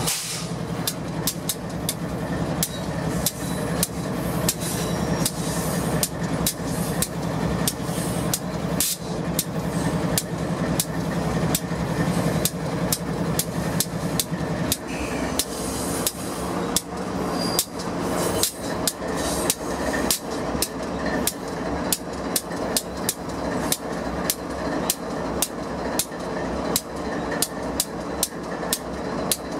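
Intermodal freight train rolling past on the next track, its steel wheels clicking sharply and rhythmically over the track, several clicks a second, over a steady low rumble of the passing cars.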